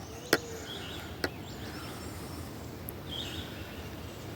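Outdoor riverside background: a steady even rush of noise, two sharp clicks in the first second or so, and a bird chirping briefly about three seconds in.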